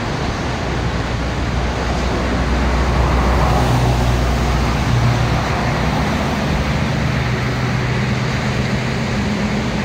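Rough sea surf washing steadily onto the beach, under the low hum of a motor vehicle's engine that swells a few seconds in.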